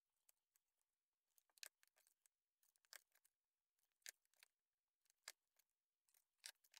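Hand-held hole punch pliers squeezed through an embroidered piece to punch its holes, giving a handful of faint, separate clicks and snips.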